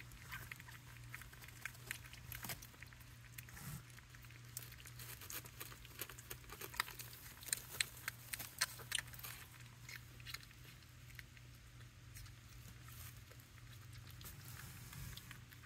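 Pomeranian puppies eating dry kibble from a plastic bowl: faint crunching and small irregular clicks of kibble and teeth, busiest about halfway through.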